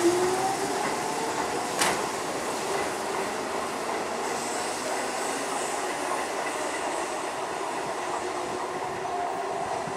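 Hokuso Railway 9000 series electric train pulling away, its motor whine rising in pitch and loudest at the start, then the steady run of its wheels on the rails as it leaves. A sharp click about two seconds in, and a second train's faint whine near the end.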